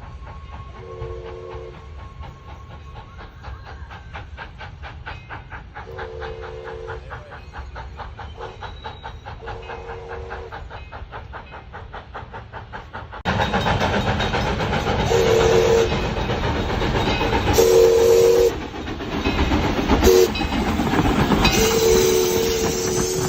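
Train horns in two clips. First, a fainter horn gives a few blasts over a steady clicking of wheels on the rails. About 13 seconds in, a louder, closer horn blows long, long, short, long (the grade-crossing signal) over the noise of the passing train.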